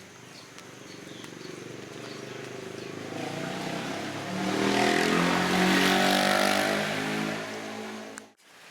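A motor vehicle engine coming closer, passing loudest about five to seven seconds in, then fading; the sound cuts off abruptly near the end.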